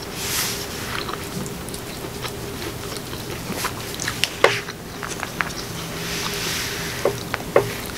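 Close-miked eating sounds: chewing, with a few short sharp clicks of a fork against the takeout bowl.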